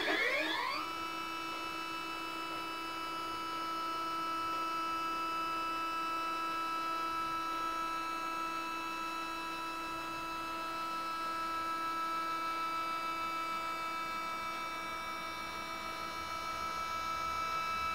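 SynScan EQ5 Pro stepper motors slewing an EXOS-2 equatorial mount through a meridian flip. Their whine rises quickly in pitch in the first second as they ramp up to speed, then holds as a steady, many-toned whine.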